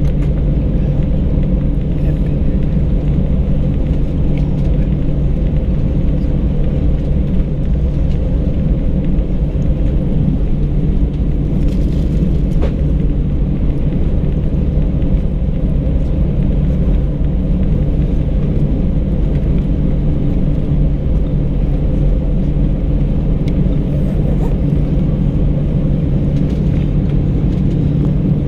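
Airbus A319 cabin noise after landing: a steady low rumble with a constant hum from the engines, unchanged throughout.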